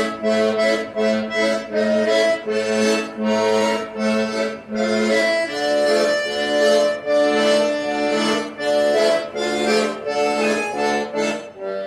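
Accordion playing a lively tune: a melody over a repeated bass note that pulses about twice a second.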